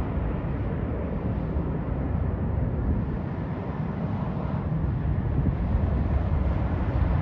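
Jet engine noise from a landing Boeing 777-300ER's GE90 engines: a steady, low rumble that grows a little louder near the end.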